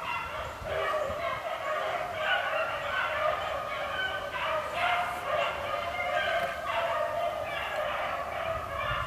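A pack of beagles baying as they run a rabbit, several hound voices overlapping in a continuous chorus: the pack is on the rabbit's trail.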